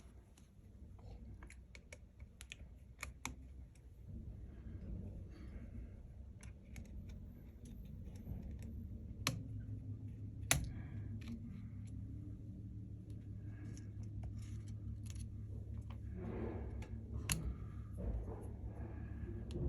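Small irregular clicks and taps of repair tools on an opened iPhone 12 Pro Max as its battery and screen connectors are unclipped, with a few sharper clicks around the middle and near the end, over a low steady hum.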